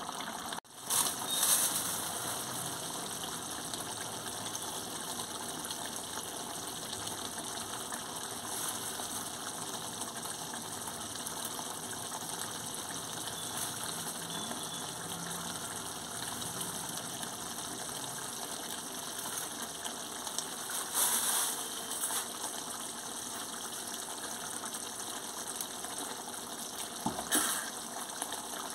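Thick chicken gravy simmering in a metal wok with a steady bubbling hiss. Brief louder bursts come about a second in, about two-thirds of the way through and near the end.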